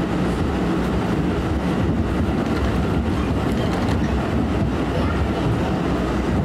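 An R179 subway car running steadily at speed, heard from inside the car: a continuous low rumble of wheels, motors and rushing air that holds even throughout.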